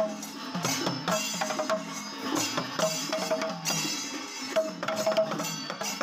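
Temple ensemble of thimila, the Kerala hourglass drums, played by hand in a dense, quick rhythm of many strokes. A repeated ringing tone sits over the drumming.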